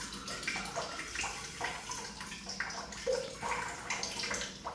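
Water running steadily with small irregular splashes, like a tap or a filling cistern.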